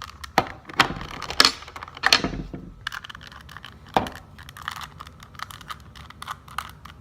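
Plastic Rubik's Cube pieces clicking and snapping as the cube is pressed back together by hand: several sharp snaps in the first two seconds and one about four seconds in, with lighter clicking between.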